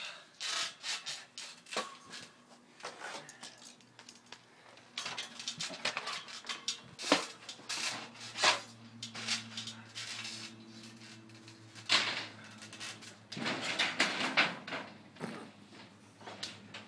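Irregular knocks, thumps and clattering as people scuffle and move about on a trampoline, with denser metallic clattering near the end as one climbs onto a sheet-metal garden shed.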